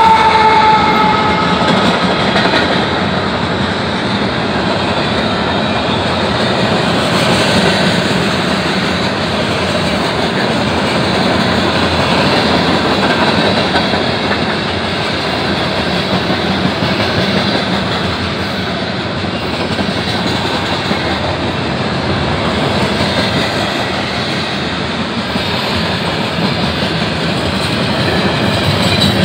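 Freight train rolling past close by: a diesel locomotive and then a long string of tank cars, hoppers and boxcars, making a steady, loud rolling noise of steel wheels on rail. A high tone fades out in the first second or two.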